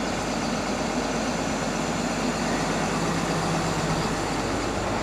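Snap-on tool truck's engine idling steadily.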